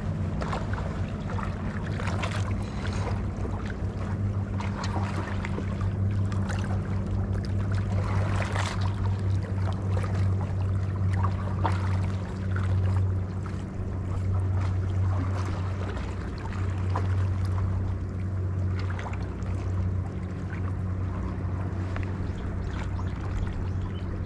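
Steady low hum of a boat engine idling, with light crackling and lapping water over it.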